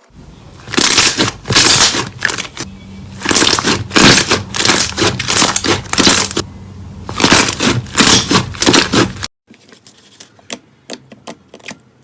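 Slime being squeezed and pressed by hand in repeated loud, noisy bursts. About nine seconds in it cuts to a quieter run of short clicks.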